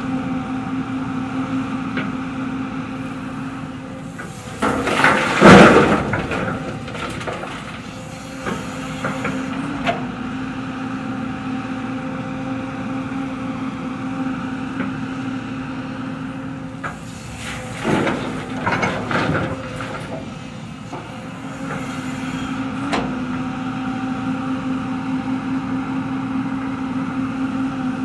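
JCB tracked excavator's diesel engine and hydraulics running steadily under digging load. Twice, about five and about eighteen seconds in, the bucket makes a loud burst of scraping and crashing as it works the rocky soil.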